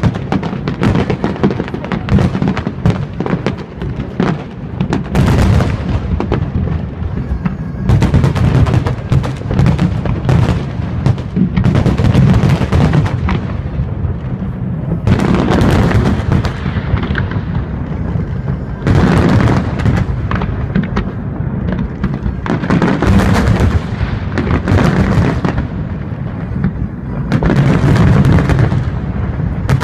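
Large aerial fireworks display: shells bursting in rapid, overlapping bangs with crackling, continuous and swelling in loud surges every few seconds.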